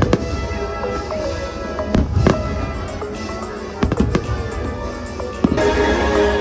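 Fireworks shells bursting in sharp bangs, several of them, over the fireworks show's music soundtrack, which swells louder about five and a half seconds in.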